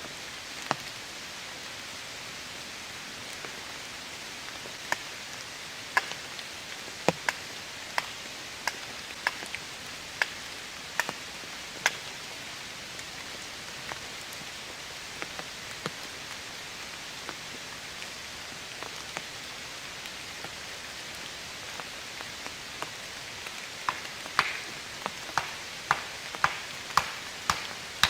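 Steady heavy rain hiss with scattered sharp ticks, roughly one a second at first, then a quicker run of them near the end.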